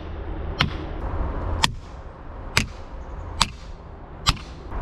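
Felling wedge being driven into a tree's cut with sharp, evenly spaced blows, about one a second, five strikes in all, to tip a leaning tree.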